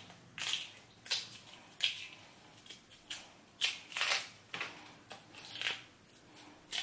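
Kitchen knife scraping and shaving the bark-like skin off a cassava root, in a series of about ten short, sharp strokes at an irregular pace.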